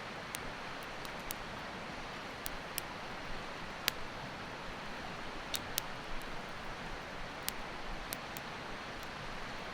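Steady rushing of a mountain river, with a dozen or so faint sharp clicks scattered over it, the strongest about four seconds in.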